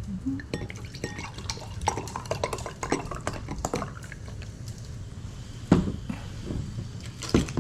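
Glassware and tableware clinking, with drink being poured, in a run of scattered small clicks and a couple of sharper knocks near the end.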